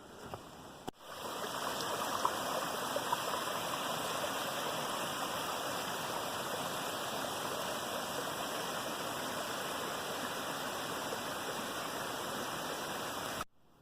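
Stream or brook running with a steady rush of water, starting and ending abruptly.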